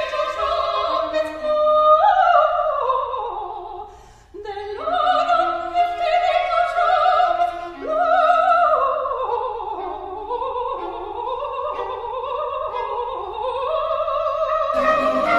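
A soprano sings an operatic aria with wide vibrato in long, falling melismatic runs, over a small period-instrument ensemble of strings and harpsichord. She breaks briefly about four seconds in. Near the end the ensemble comes in fuller and brighter.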